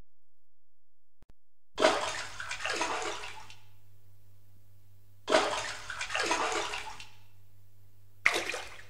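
Three sudden bursts of rushing noise over a faint low hum: the first two last about a second and a half each and swell a second time before fading, and the third, near the end, is short.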